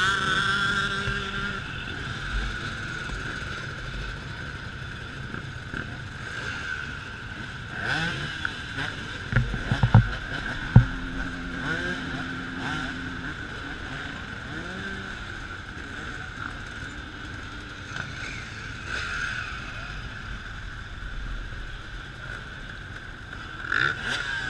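A stream of enduro dirt bikes riding past, their engines revving up and down as each one goes by. There are a few loud knocks around ten seconds in.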